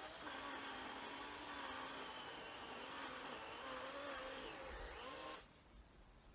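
Makita cordless chainsaw running, its electric motor whining with a pitch that wavers, then cutting off abruptly about five seconds in.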